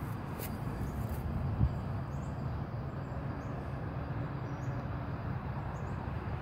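Steady low outdoor rumble, with one short thump about a second and a half in.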